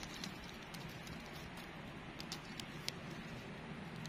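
Small wood campfire crackling: scattered sharp pops over a steady hiss, the loudest pop about three seconds in.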